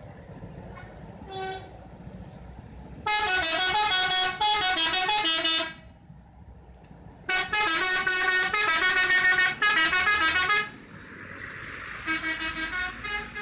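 Indonesian bus telolet horn, a multi-tone musical air horn, playing a melody: a short toot, then two long phrases of stepping notes, with a third phrase starting near the end.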